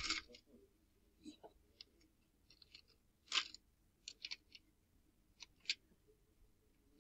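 Metal coins clinking and sliding against each other in a cash register drawer tray as a cat paws at them. There are several short jangles, the loudest about three and a half seconds in, with a few more quick clinks after it.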